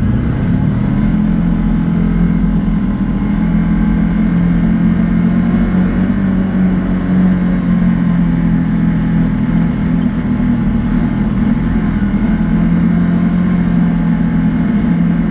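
Can-Am Commander 800 side-by-side's V-twin engine running at a steady cruise, heard from inside the open cab, a constant drone with little change in pitch.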